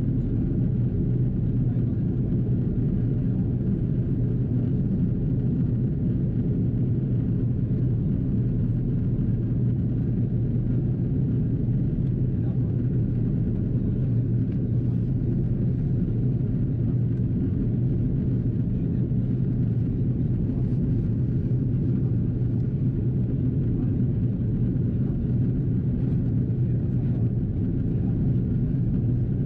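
Steady low rumble inside the cabin of an Airbus A330-343 in descent: its Rolls-Royce Trent 700 engines and the airflow around the fuselage, unchanging throughout.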